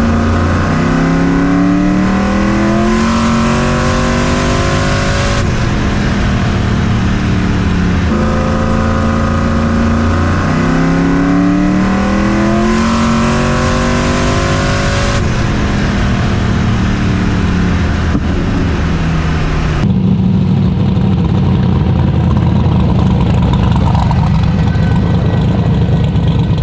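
Boosted engine of an S10 drag truck accelerating, its pitch climbing in several rises with drops between them, then running steadily from about two-thirds of the way in.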